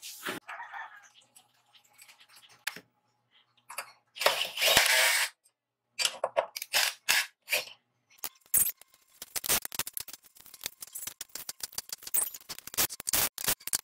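Clicks and knocks of steel parts and tools being handled as a hacksaw blade is bolted onto a homemade power-hacksaw arm. A short burst of noise about four seconds in fits a cordless drill-driver driving the blade bolt, and a long run of rapid clicking fills the second half.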